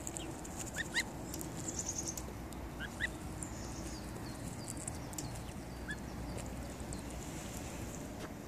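Goose goslings peeping: a few short, high, rising peeps, one about a second in, a pair about three seconds in and one near six seconds. Short clicks are scattered between them as the goslings peck at the grass.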